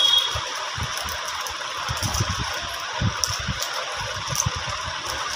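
Small jewellery pieces being handled, with irregular soft thumps and a few faint light clicks over a steady background hiss.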